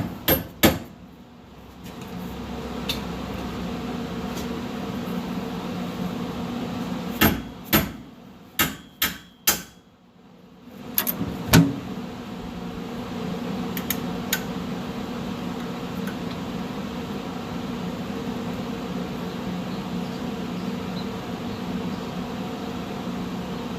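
Sharp hammer blows on metal during work on a truck's rear axle: two at the start, a quick run of about five a few seconds later, and one more after that, over a steady low machine hum.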